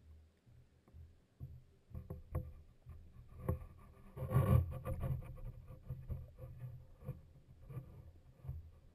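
Muffled water noise picked up by an underwater camera in its housing on a pole: a low rumble with scattered knocks, and a louder brief rush of water about four and a half seconds in.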